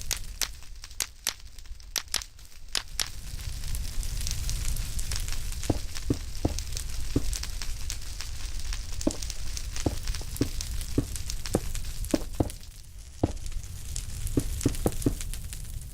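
Wood fire crackling in a fireplace: sharp pops and snaps over a steady low rumble.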